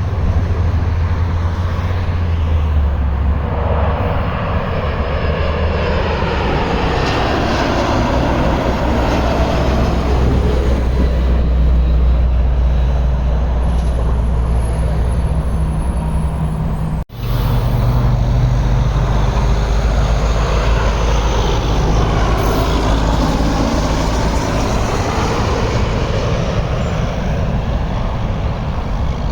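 Jet airliner passing low overhead on landing approach: a loud, steady low rumble with a hiss that swoops down and back up in pitch as it passes. The sound breaks off for an instant about 17 seconds in, then another pass follows with the same swooping hiss.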